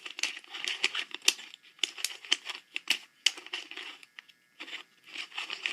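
A plastic 2x2 mirror blocks puzzle cube being turned and handled: quick irregular clicks and rattles of its plastic pieces, with a couple of short pauses.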